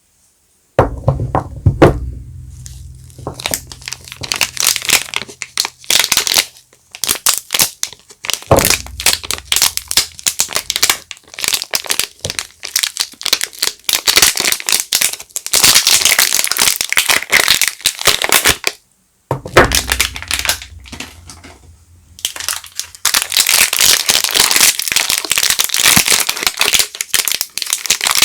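Soap packaging crinkling and crackling as it is handled and unwrapped by hand, in dense bursts with short pauses. A few dull thumps come about a second in, near the middle and about two-thirds of the way through.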